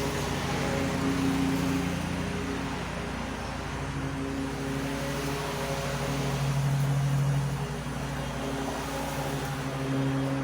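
Petrol lawn mower engine running steadily, its drone swelling and easing slightly as it works.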